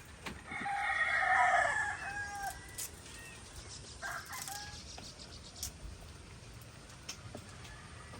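Rooster crowing: one long crow starting about half a second in and lasting about two seconds, followed by a shorter call about four seconds in.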